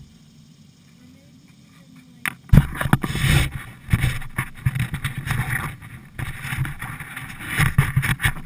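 Water noise around a kayak on a flooded river, loud and irregular, with splashes, starting abruptly about two and a half seconds in after a quiet opening.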